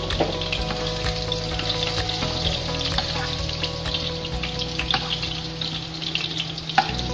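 Cubed carrots and potatoes frying in hot rendered pork fat in a wok: a steady sizzle full of small crackles, with a spoon scraping and tapping against the pan as potato cubes are scooped out, and one sharper knock near the end.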